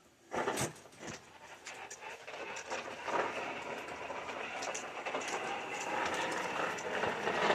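Toy bubble lawnmower clattering and ticking as it is pushed along, building up from about a second in and then running steadily.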